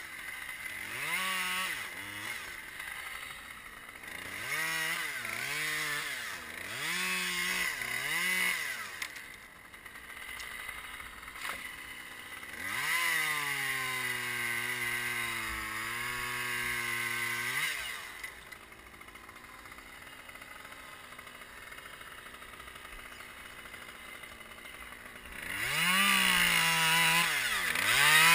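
Chainsaw engine revved in a series of short throttle blips, then held at high revs for about five seconds. It drops back to a quiet idle, then revs up again, loudest near the end.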